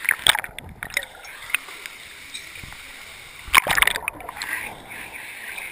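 Waterfall water splashing and pouring right over a GoPro camera, with sharp knocks and clatters as it bumps against wet rock, loudest about half a second in and again about three and a half seconds in.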